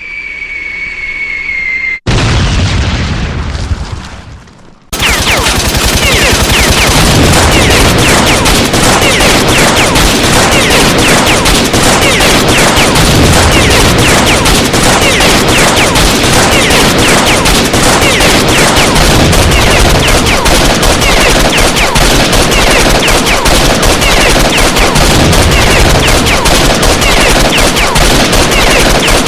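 Sound-effect sequence: a high whistle falling in pitch, then a loud explosion boom about two seconds in that rumbles away. About five seconds in, sustained heavy automatic gunfire starts, a dense continuous fusillade that runs on without a break.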